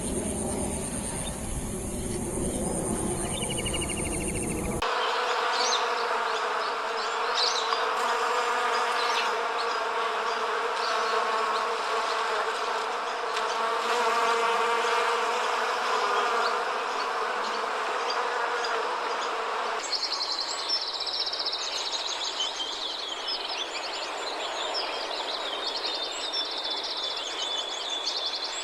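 Insect sounds in three changing stretches. First a steady high shrill tone, then, after an abrupt change about five seconds in, a droning buzz like flying bees or flies. About twenty seconds in this gives way to a fast-pulsing high trill of singing insects.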